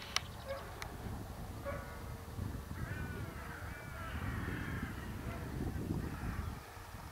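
Wind rumbling on the microphone, with a sharp click at the very start. A few distant calls come in the middle, twice or three times.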